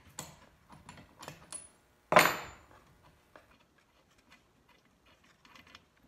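Handling noise from working on a chainsaw on a wooden workbench: light clicks and knocks, with one loud, sharp knock about two seconds in that rings briefly.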